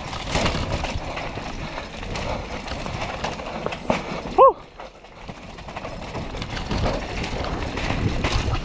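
Mountain bike rattling and clattering as it rolls fast over rough, jarring dirt singletrack, with steady tyre and rolling noise full of small knocks. A brief pitched squeal, rising then falling, cuts through about four and a half seconds in and is the loudest moment.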